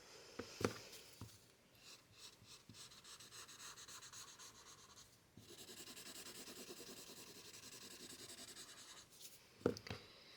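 Quick, even back-and-forth strokes rubbing across textured all-purpose drawing paper, growing steadier from about five seconds in. Two sharp taps come about half a second in and near the end.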